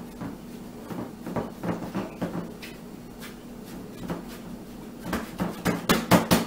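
Gloved hands pressing and patting a tofu meatloaf mixture down into a glass baking dish: soft, irregular pressing at first, then quick sharp pats, several a second, from about five seconds in.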